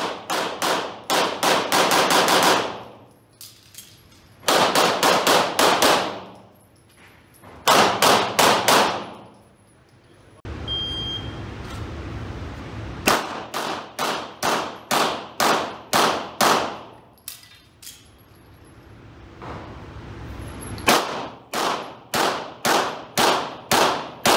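Rapid strings of pistol shots echoing in an indoor range, several shots a second with short pauses between strings. Partway through, a shot timer gives one short beep and the shooting starts again about two seconds later.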